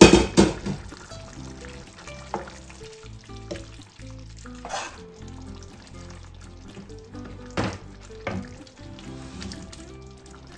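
Mung bean stew bubbling in a pan while a nylon slotted spoon stirs it, with a loud clatter right at the start and a few knocks of the spoon against the pan. Background music plays underneath.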